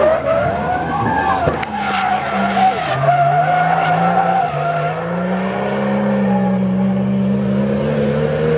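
Drift car's engine held at high revs while the rear tyres spin and squeal through a long, smoky slide. The engine note drops about three seconds in, then climbs again.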